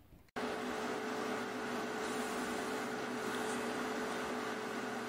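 Steady hiss with a constant low hum, like a small appliance or fan running, starting abruptly about a third of a second in and holding unchanged.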